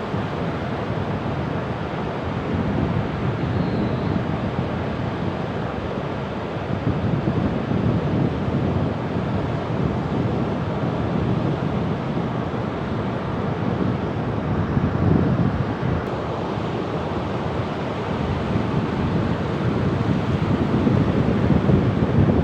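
Sea waves washing ashore in a steady rush of surf, swelling louder every five to seven seconds as each wave comes in.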